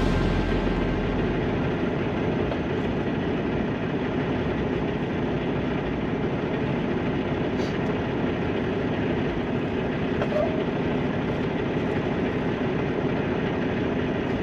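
Semi truck running with a steady low engine and road rumble.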